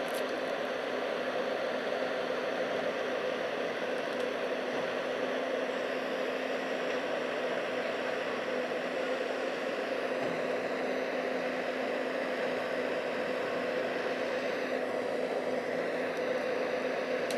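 Excavator's diesel engine running steadily: an even hum with a faint steady low tone under a noisy hiss.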